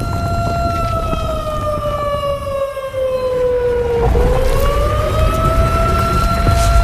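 A siren-like warning tone holding steady, then slowly sinking in pitch for about three seconds before climbing back up and holding again, over a low rumble.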